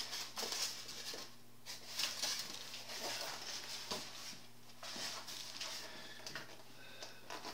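Hands handling a cardboard box and a clear plastic packaging tray: the lid coming off and the tray being lifted out, making a run of rustles, scrapes and light clicks.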